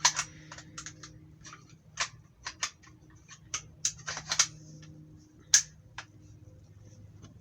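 Irregular sharp clicks and light knocks, about fifteen spread unevenly, from objects being handled, over a faint steady low hum.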